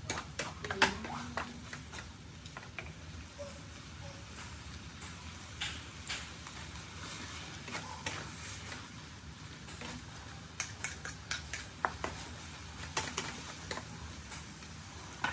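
Stir-fried noodles sizzling steadily in a pan while a spatula tosses them, clacking and scraping against the pan in sharp, irregular strokes. There is a cluster of clacks about a second in and more in the last few seconds.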